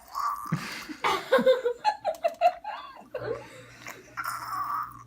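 People laughing in a run of short, quick bursts, with breathy hissing sounds at the start and again about four seconds in.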